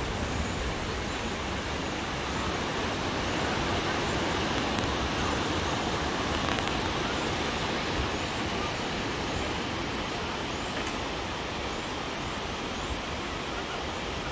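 Steady rush of surf breaking and washing up a wide sandy beach.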